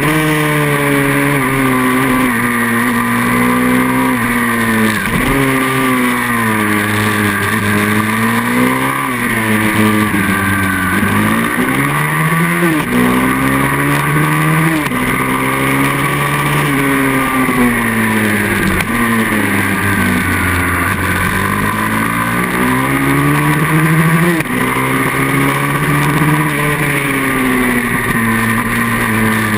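Onboard sound of a racing pit bike's single-cylinder engine at full effort, its pitch climbing under throttle and dropping sharply again and again as the rider shifts and brakes for the corners.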